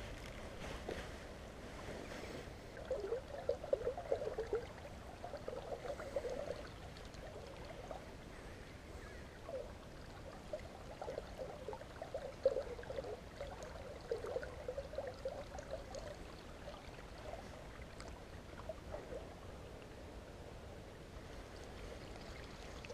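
Fast-flowing river water running over shallows, with irregular gurgles.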